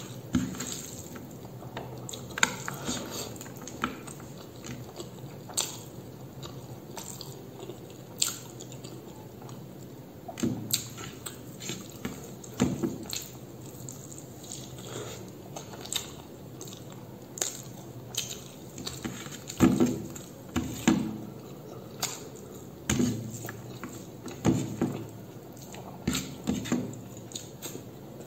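A person eating rice by hand at close range, chewing with wet lip smacks and mouth clicks at irregular intervals.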